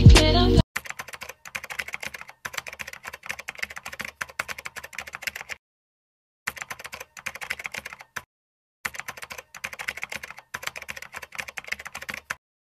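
Typing sound effect: rapid runs of keyboard key clicks, with two brief pauses near the middle.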